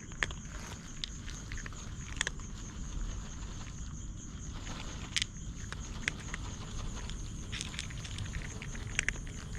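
Night-time outdoor ambience: an insect trilling steadily on one high note, over a low even rumble, with scattered light clicks and pattering, a few sharper ticks among them.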